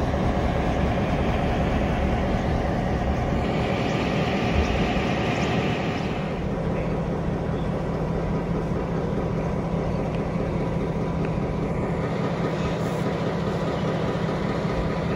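Diesel-electric locomotives rumbling past on the track. About six seconds in the sound changes suddenly to a steady engine drone from a lash-up of ex-Victorian Railways Y class and T class diesel locomotives.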